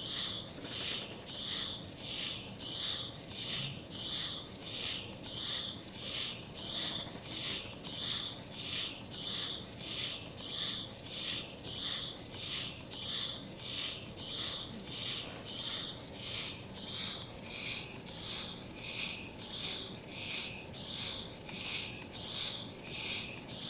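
Small rotary steam engine running on low-pressure steam, under one psi, giving a steady rhythm of hissing steam puffs about one and a half times a second.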